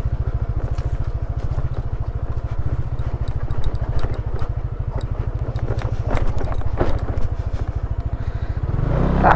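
Yamaha NMAX scooter being ridden, its engine running with a steady, rapid low pulsing. Near the end the engine note changes as the scooter slows.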